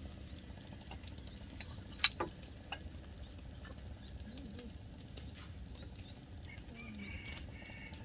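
Small birds chirping repeatedly, short rising calls, over a low steady background hum. About two seconds in comes a single sharp clink of a utensil on tableware, then a couple of fainter taps.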